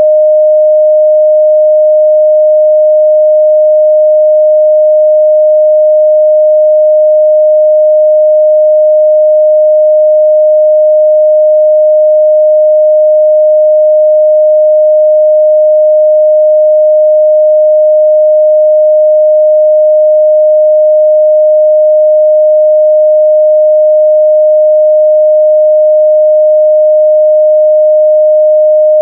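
A pure 614 Hz sine-wave test tone held steady at one pitch and level, a loud, unbroken midrange beep for checking speaker and headphone response.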